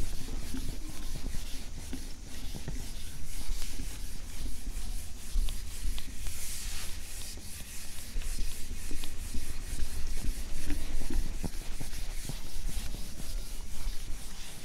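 Rubbing and scraping strokes on a classroom board, made while the board is written or drawn on or wiped, with a low steady hum underneath.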